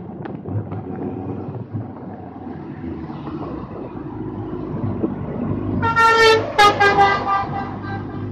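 Motorcycle engine and road noise running steadily, then a vehicle horn honks about six seconds in: one longer blast followed by several short toots.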